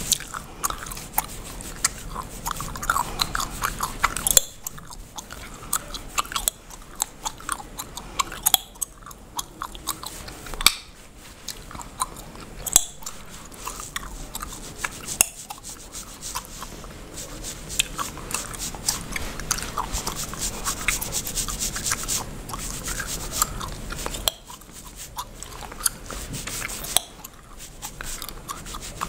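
Bubblegum chewed and cracked close to the microphone, giving irregular sharp snapping pops, over the scratchy rubbing of a cotton pad scrubbing along the scalp and through the hair.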